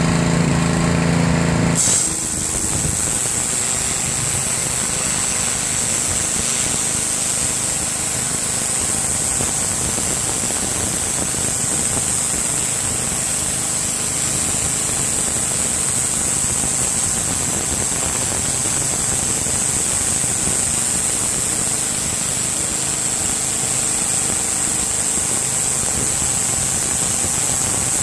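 Excell 3100 PSI gas pressure washer running steadily. About two seconds in, the engine note changes and the hiss of the high-pressure water jet takes over as it blasts a concrete driveway, continuing without a break.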